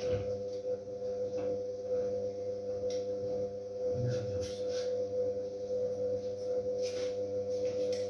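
Siemens Siwamat Plus 573 front-loading washing machine running, its motor giving a steady hum while laundry tumbles slowly in the drum, with a few faint knocks.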